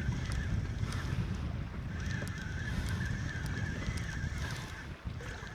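Wind buffeting the microphone and choppy sea water around a small boat make a steady low rumble. A faint, thin, high tone runs for a couple of seconds in the middle.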